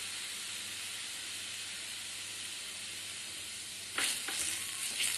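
Betel-leaf rasam frothing in a nonstick pan with a steady hiss; about four seconds in, a wooden spatula stirs it, adding a few louder scraping strokes.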